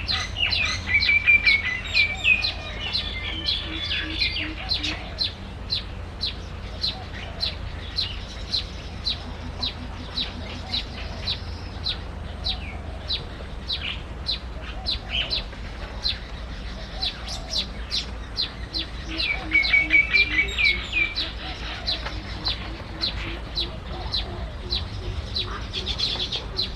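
Small bird chirping in a quick, even series of short, high chirps, about two or three a second, broken twice by a louder rattling trill, once near the start and again about two-thirds of the way through. A steady low hum runs underneath.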